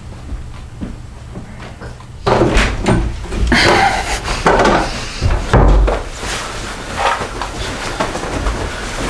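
A door opening and banging, with a run of knocks and thumps. These start suddenly about two seconds in, after a stretch of faint room sound.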